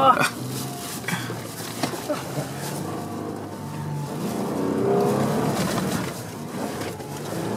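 SUV engine running under load as it drives up and over sand dunes, heard from inside the cabin; the sound grows louder about five seconds in.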